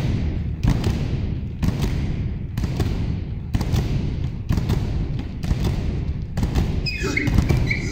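A group of barefoot dancers stamping together on a stage floor in a steady rhythm, one heavy thump about every second. High voices cry out near the end.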